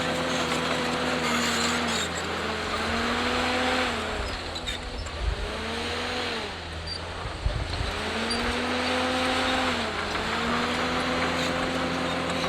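Bulldozer's diesel engine running under load, its pitch sagging and recovering several times as it lugs and picks back up, with a couple of dull thuds near the middle.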